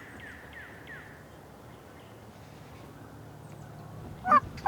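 Wild turkey gobbler gobbling loudly close by, starting near the end as a rapid rattling run of notes. Before it, a small bird's faint repeated down-slurred chirps, about three a second, stop after about a second.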